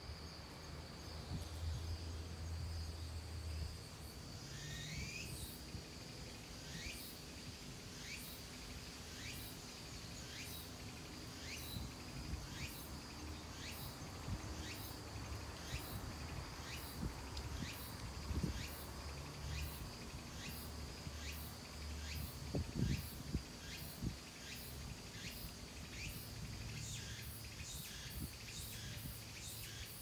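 Forest ambience: a steady high-pitched insect trill, joined a few seconds in by a short high call repeated about once or twice a second that quickens near the end, over low wind noise.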